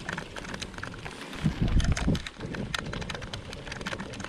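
Riding noise on a moving bicycle: a steady patter of fine clicks and rattles, with a deep burst of wind buffeting the microphone about a second and a half in.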